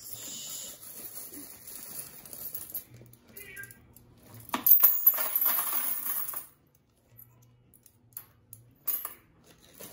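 Weights being dropped into a plastic bucket: scattered clicks, then one loud sharp clatter about halfway through.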